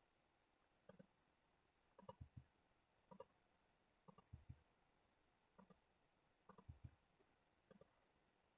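Faint clicks of a computer mouse and keyboard, about one a second, some doubled and a few with a soft low thump, over near silence.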